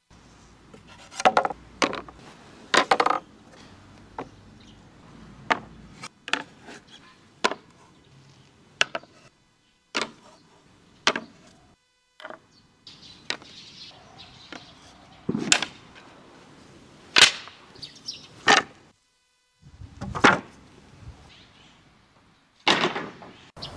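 Elm boards and panels knocking and clattering against one another as they are lifted and set down: about twenty sharp wooden knocks at irregular intervals, some in quick pairs.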